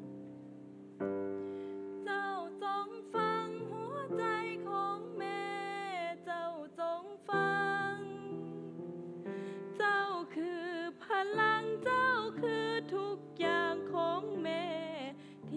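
Slow song with piano or keyboard accompaniment. A woman's voice sings a held, wavering melody with vibrato, entering about two seconds in.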